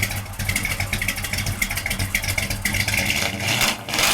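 Plymouth Road Runner's V8 running and revving through its exhaust, a steady pulsing rumble that gets louder near the end.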